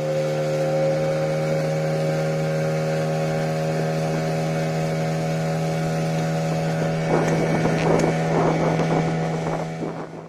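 Boat motor running at a steady speed, one unchanging hum. Wind buffets the microphone in gusts in the last few seconds.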